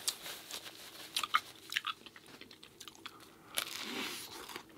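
Close-miked eating sounds: a person biting and chewing syrup-covered breakfast food, with irregular wet mouth clicks and smacks and a denser stretch of chewing near the end.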